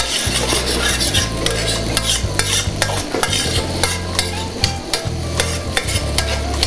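Metal spoon and fork clattering and scraping in a copper pan as linguine with scampi is stirred and gathered together, many quick irregular clinks over the sizzle of the sauce on the burner.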